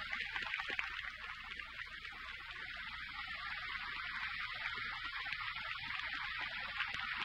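A large audience applauding steadily: dense, even clapping, heard through old, narrow-band broadcast audio.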